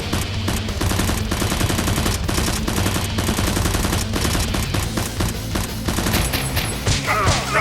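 Rapid bursts of automatic gunfire sound effects over background music, with a short falling sweep near the end.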